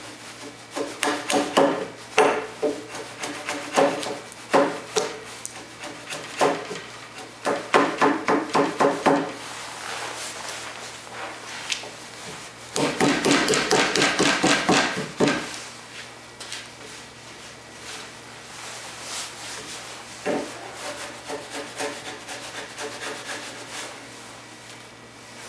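Wide wood chisel paring and scraping the cheek of a white pine tenon: clusters of short rasping strokes, a long fast run of strokes about halfway through, then fainter scraping.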